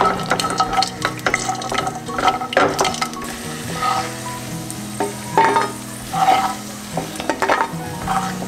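Cashew nuts sizzling as they fry in shallow oil in a non-stick kadai, with a silicone spatula stirring them and scraping across the pan in several separate strokes.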